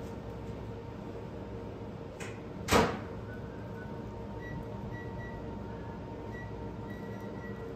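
Steady low hum, with one short, loud knock about three seconds in.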